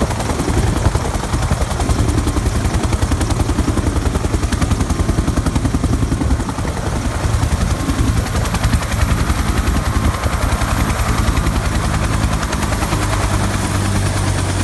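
Helicopter's rotor beating rapidly over its steadily running engine during the landing; a steady low hum grows stronger from about ten seconds in.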